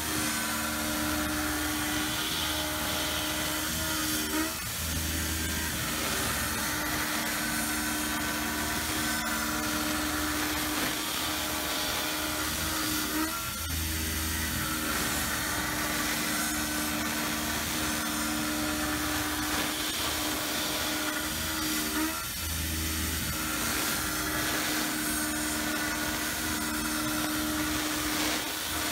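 Tormach PCNC 770 CNC milling machine cutting steel with a 5/16-inch end mill, spindle at 4500 RPM and feeding at 120 inches a minute: a steady machining whine with the noise of the cut. The sound dips briefly three times, about nine seconds apart.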